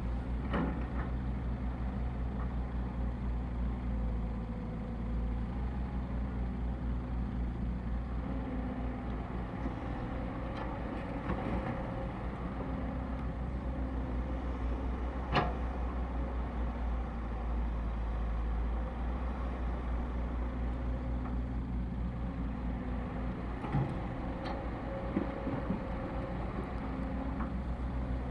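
Excavator engine running under working load, its steady drone shifting in level every few seconds as the hydraulics work, with a few sharp clanks, the loudest about halfway through.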